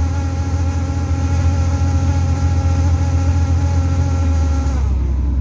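Weird buzzing vibration inside an Orion VII city bus, a steady pitched buzz over the low rumble of the bus; near the end the buzz slides down in pitch and stops while the rumble goes on. The uploader suspects the heater as its source.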